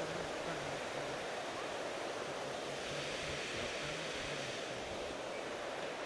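Waterfall: steady, even rushing of falling water with no breaks.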